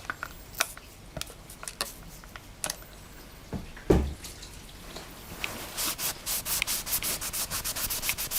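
Fast back-and-forth rubbing strokes on the surface of a LiPo battery pack, about seven a second, building up in the second half. Before them come a few scattered clicks and a single thump about four seconds in.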